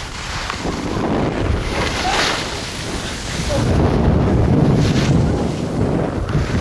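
Wind buffeting the microphone of a camera carried down a ski slope, a rough rumbling noise that grows louder about three and a half seconds in.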